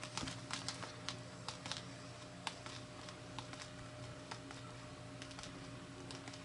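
Faint, irregular light clicks and ticks, denser in the first two seconds, over a steady low electrical hum: handling noise from hands shifting on a cardboard box.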